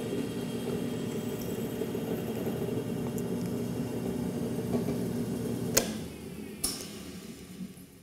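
Delta 18-900L drill press running steadily with a 9/32-inch bit that has been boring out a 1/4-inch air fitting. About six seconds in there are two sharp clicks, and the motor then winds down.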